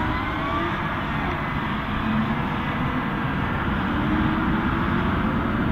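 Diesel engine of a Case IH Magnum tractor working under load as it pulls a silage trailer through soft, muddy ground. The engine note rises slowly in pitch.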